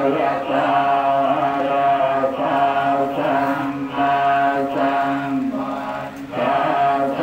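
Buddhist monks chanting in unison: a steady recitation held on a few notes in long phrases, with brief breaks between them, the longest about six seconds in.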